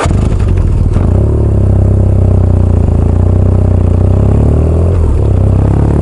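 Vehicle engine running steadily under load, its pitch rising as it speeds up in the last second or so.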